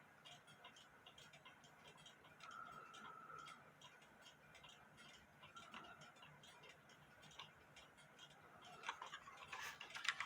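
Cuckoo clock ticking faintly and steadily as its escapement beats. A few louder clicks come near the end.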